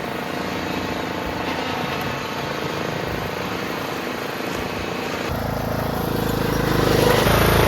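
Riding lawnmower engine running, growing louder from about five seconds in.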